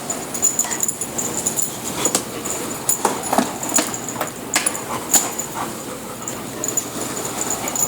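A boxer dog snapping and making dog sounds at a running vacuum cleaner: a string of short, sharp sounds over the vacuum's steady noise.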